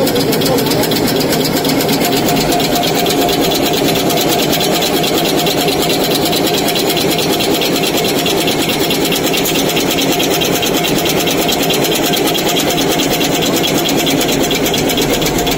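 Napkin folding machine running at production speed: a loud, fast, even mechanical clatter over a steady hum.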